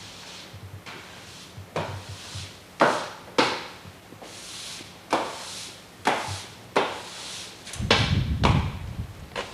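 A run of irregular sharp knocks and clacks, about a dozen, with a low rumbling clatter near the end.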